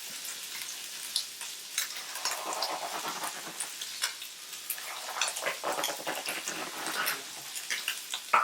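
Meat frying on a hot griddle: a steady sizzle with scattered crackles and pops.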